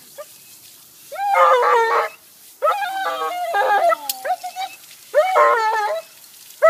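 Dog howling in three drawn-out, wavering cries, each lasting about one to two seconds, with short pauses between them.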